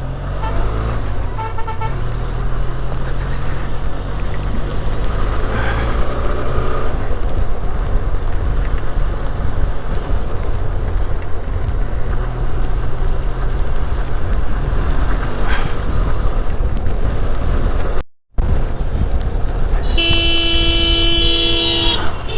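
Benelli TRK 502's 500 cc parallel-twin engine running steadily under way, with road and wind noise. A short horn beep comes about a second and a half in, and a vehicle horn sounds for about two seconds near the end. The sound cuts out for a moment about three-quarters of the way through.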